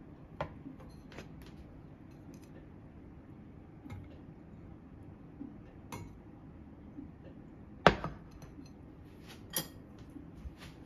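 Scattered light clinks and knocks of a ceramic plate and utensils on a kitchen counter, the loudest a sharp clack near the end as the plate is set down.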